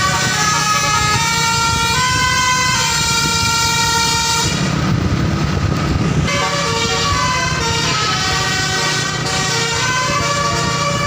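A bus's multi-tone 'telolet' basuri musical horn playing a melody in stepped, held notes. It breaks off for about two seconds near the middle, then plays on, over a steady low rumble.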